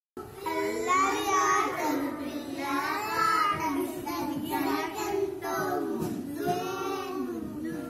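A small group of young children singing a Telugu rhyme.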